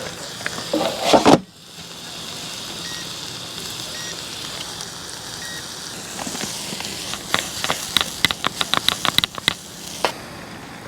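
Food sizzling in a frying pan, which breaks off suddenly about a second in, then a steady hiss. Near the middle comes a quick run of about a dozen sharp clicks, roughly five a second.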